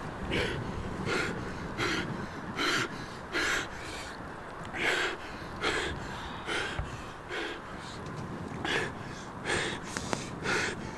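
A man breathing heavily, with loud, quick gasping breaths at about one a second.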